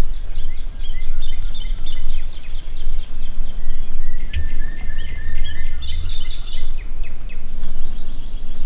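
Wind rumbling on the microphone while small songbirds chirp and trill.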